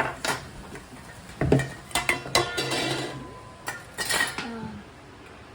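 Dishes and containers clinking and clattering: a run of separate knocks and clinks, some with a short ring.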